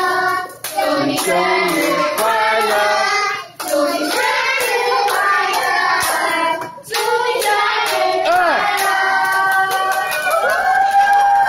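A group of children singing a song together, with hand clapping; the singing pauses briefly three times between phrases.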